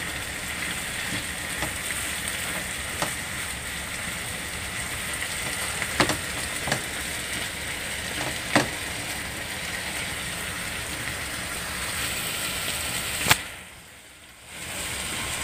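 Chicken wings and potatoes sizzling in a frying pan, a steady hiss, with a few sharp knocks of a spatula against the pan. Near the end the sizzle drops away suddenly for about a second, then comes back.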